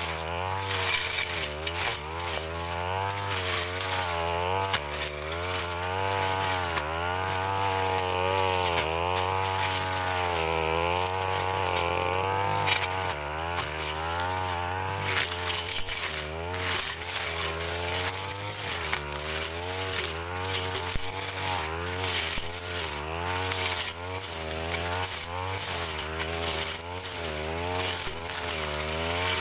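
Backpack brush cutter's small engine running hard, its pitch rising and dipping about once a second as the spinning blade is swept through thick grass and brush.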